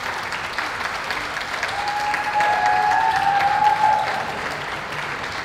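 Audience applauding steadily as a dog is presented in the show ring, with a held tone sounding over the clapping for a couple of seconds in the middle.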